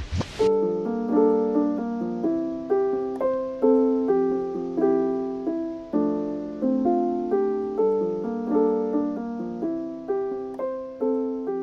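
Background music: a gentle piano tune, notes and chords struck in a steady rhythm and left to fade, after a short swish at the very start.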